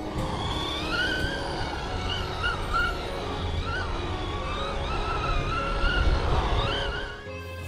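Electric radio-controlled car's motor whining, its pitch rising and falling again and again as the throttle is worked, over background music.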